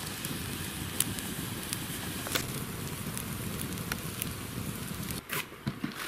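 Wood campfire burning with a steady rush and crackle, with a few sharp pops from the burning logs, under a hanging cooking pot; it ends about five seconds in.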